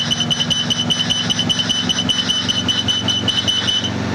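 Enstrom F-28F helicopter's low-rotor-RPM warning horn beeping in a fast steady pulse, about five beeps a second, over the running piston engine and rotor. It sounds as the collective starts to come up with the engine at 2300 RPM, and cuts off near the end.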